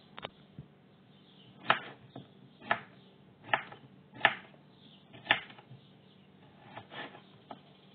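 Kitchen knife slicing zucchini into rounds on a wooden cutting board: a sharp knock of the blade on the board with each stroke, about once a second, starting a little under two seconds in.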